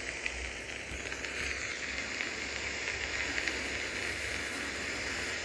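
Steady rushing noise of a swollen, muddy river in flood pouring past below a bridge.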